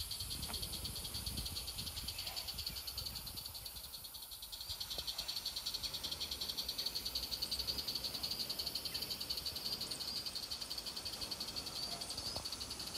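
Small live-steam garden-railway locomotive running past with its goods train, giving a fast, steady, even rhythmic beat that dips briefly about four seconds in.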